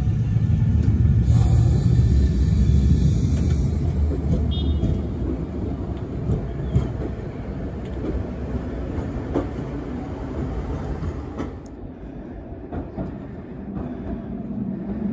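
Mitsubishi IGBT VVVF-controlled 8200-series tram running past, a loud low rumble that fades as it moves away, with a few sharp clicks later on.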